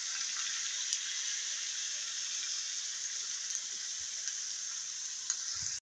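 Pork frying in a wok with sauce just poured in, giving a steady sizzle with a few small pops.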